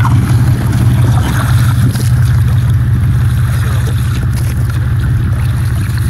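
An engine running steadily at idle, a loud, low, unbroken hum.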